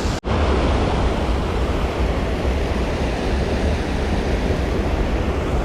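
Steady rushing noise of fast, rain-swollen creek water, with wind rumbling on the microphone. The sound cuts out for an instant just after the start.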